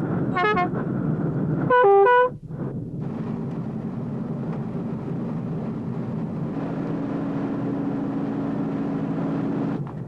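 Two short horn blasts from a boat, the second louder, then the boat's engine running steadily with a low hum.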